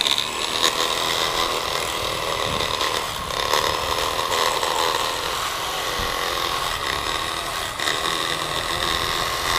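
Corded electric fillet knife switching on and running with a steady motor whine as its reciprocating blades cut along a blue catfish from head toward tail.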